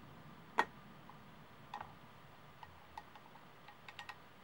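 Small metal clicks of brass clock hands being handled and pressed onto a quartz clock movement's centre shaft by fingers: one sharp click about half a second in, then a scatter of fainter, irregular clicks.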